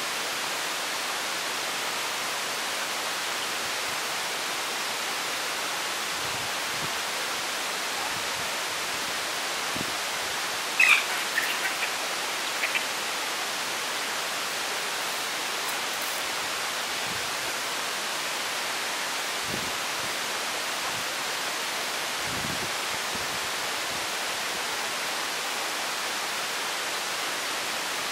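Steady hiss throughout. About eleven seconds in comes a brief cluster of short, high chirps, with two more a moment later, typical of chicken chicks peeping while foraging.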